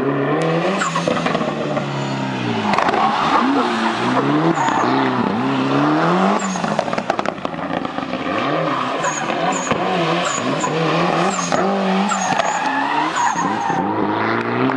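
Autocross car's engine revving up and down over and over as it slides through the turns, with tyres squealing and skidding on the tarmac.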